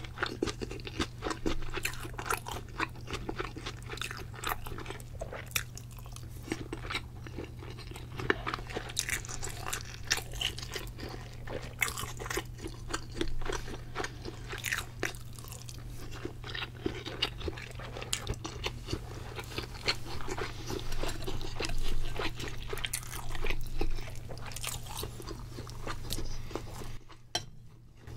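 Close-miked chewing of sushi: many small irregular wet clicks and soft crunches from the mouth, with a steady low hum underneath. The sound drops out briefly near the end.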